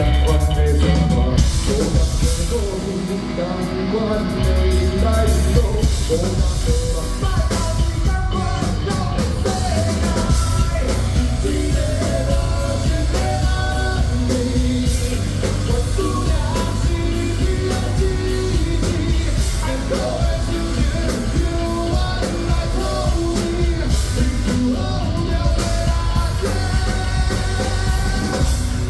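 Rock band playing a loud, full-band song with a singer, drum kit and strong bass under it.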